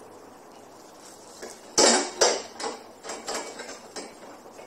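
Metal clanks and clicks of a lawn mower's tubular handle sections being fitted together by hand: two loud clanks about two seconds in, then a run of smaller knocks and clicks.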